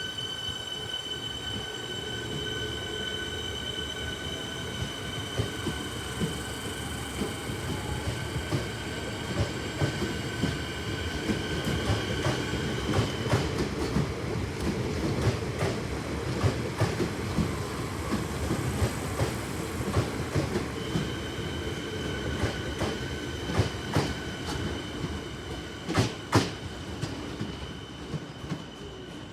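Suburban electric train moving through the station: a steady, high-pitched wheel squeal drops out about halfway through and comes back later, over a running rumble and a string of sharp clicks as the wheels cross rail joints and points. The two loudest clicks come near the end.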